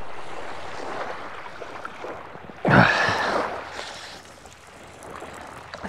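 Small waves washing in at the water's edge, with wind noise on the microphone; a louder wash comes in suddenly about two and a half seconds in and fades away.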